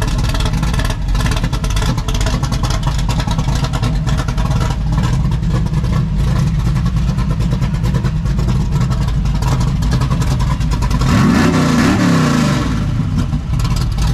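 A vehicle engine running steadily close by, with a brief rise and fall in engine pitch about eleven seconds in.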